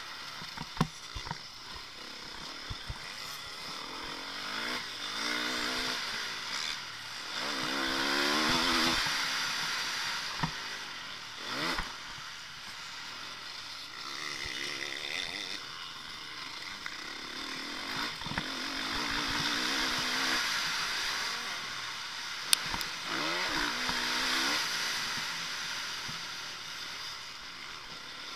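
Motocross bike engine heard from an onboard camera while riding a dirt track, revving up and down through the gears as it accelerates and backs off for corners. A few sharp knocks come through, the loudest about 22 seconds in.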